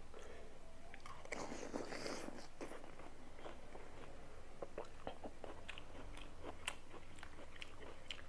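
Close-up chewing of crunchy raw mango and jicama: a string of small crisp crunches and wet mouth clicks, with a louder noisy stretch about a second and a half in.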